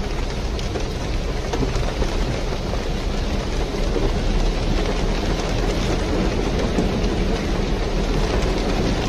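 Loud, steady rushing of a fast torrent of muddy floodwater pouring along a street and breaking in waves.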